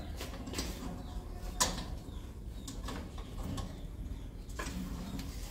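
Sharp clicks and knocks from a metal cage being handled while young civets are caught, three of them, the loudest about a second and a half in, over a low steady background rumble.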